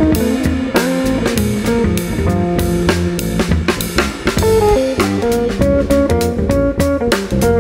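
Instrumental trio of electric guitar, electric bass and drum kit playing live: the guitar plays a line of changing single notes over the bass, with frequent drum and cymbal hits.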